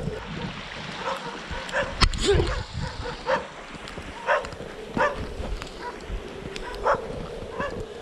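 Dog barking: short barks repeating roughly once a second, with a rising-then-falling yelp about two seconds in, over a steady faint tone.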